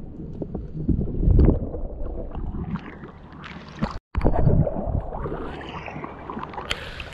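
Muffled underwater rumbling and bubbling picked up through a GoPro's waterproof housing, with loud low bursts about a second in. After a cut about four seconds in, water sloshes and splashes around the camera at the surface, with a sharp splash near the end.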